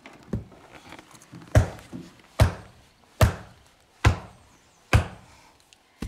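Hammer blows on spruce board-and-batten siding, driving a nail home: a light tap near the start, then five sharp, evenly spaced strikes a little under a second apart.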